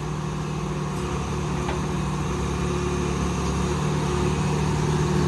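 John Deere 490E excavator's diesel engine idling steadily.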